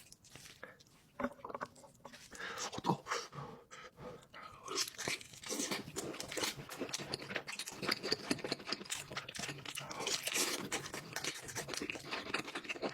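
Close-miked eating: a person chewing and crunching food with many small wet clicks and crackles, sparse at first and steady and dense from about five seconds in.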